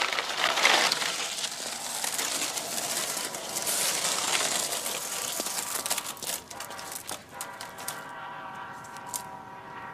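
Skateboard wheels rolling over wet asphalt: a rough rushing that dies away after about six seconds, with a few sharp clicks as the ride ends. From about seven seconds a steady pitched tone with several overtones comes in.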